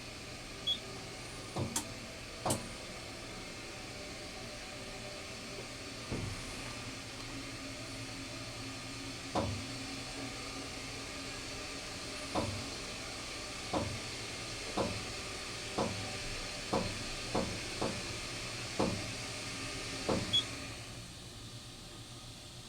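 Elevator car in motion, heard from inside: a steady hum and hiss from the drive and ventilation, with a run of short clicks and light knocks, about one a second in the second half. The hiss dies away near the end.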